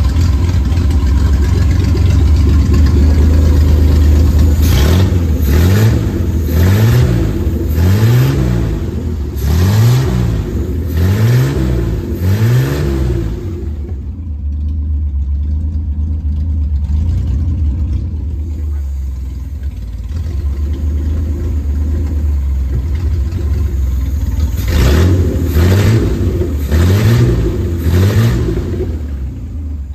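1960 Austin-Healey BT7's 2.9-litre straight-six idling, its throttle blipped by hand at the carburettor linkage. About six short revs rise and fall in quick succession in the first half, then a steadier idle, then about four more revs near the end.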